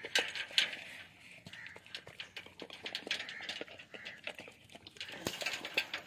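Dog eating from a hand-held metal pan: irregular wet lapping and chewing smacks with clicks of muzzle and teeth against the metal, louder about half a second in and again near the end.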